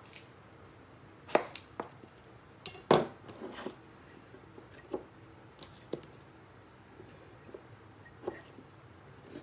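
Knife cutting cucumbers on a cutting board, a few sharp knocks in the first three seconds, then lighter scattered clicks as cucumber spears are pushed into glass canning jars.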